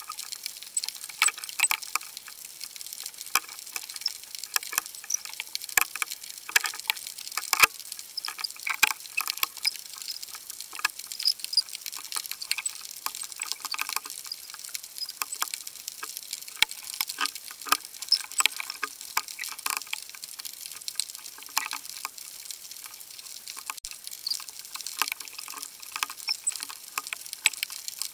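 Underwater sound of a shallow surf zone: a dense, irregular crackle of sharp clicks, several a second, over a steady high hiss.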